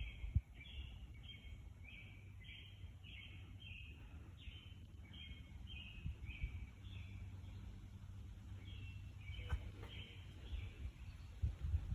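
A bird singing a series of short repeated notes, about two a second, with a brief pause before a last few notes, over a low steady background rumble.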